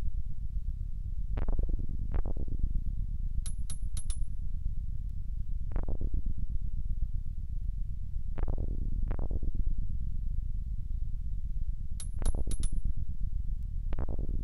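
Sound-designed film score: a steady low drone with deep hits, mostly in pairs, every three to four seconds. Small high clinks come in groups of three, twice.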